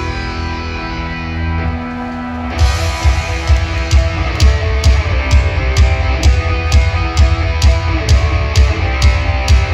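A black metal band playing live, loud. Distorted electric guitars hold sustained chords, then about two and a half seconds in the drums come in with a steady beat of about two hits a second.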